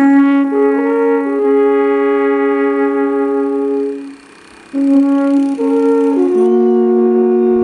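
Alphorns playing a slow melody in two-part harmony, with long held notes. The phrase breaks off about four seconds in and a new phrase begins under a second later.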